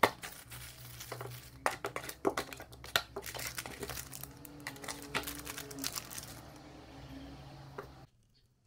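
Plastic packaging bags crinkling and a cardboard box and parts being handled, with quick crackles and light clicks of plastic pieces set down on a table, over a low steady hum. It cuts off suddenly near the end.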